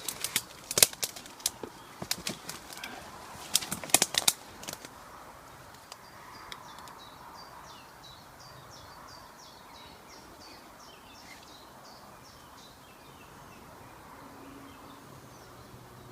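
Footsteps on a woodland floor, snapping twigs and crunching dry leaves in a run of sharp cracks for the first few seconds. After that, a small bird's rapid high chirps can be heard.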